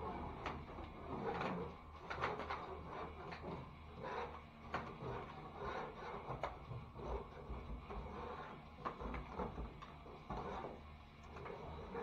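Hand drywall scraper scraping loose, peeling paper tape and joint compound off a sheetrock ceiling seam in repeated short, irregular strokes.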